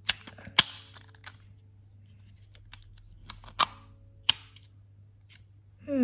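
Sharp plastic clicks, irregularly spaced, as a rainbow puzzle ball's segments are twisted and snap into place and the coloured balls inside shift. About half a dozen clicks stand out, the loudest near the start and the middle.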